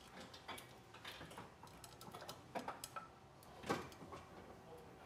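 Faint, irregular clicks and knocks of hard parts and hoses being handled in a car's engine bay, as a hydraulic clutch master cylinder and its reservoir are worked down into place. One knock past the middle is louder than the rest.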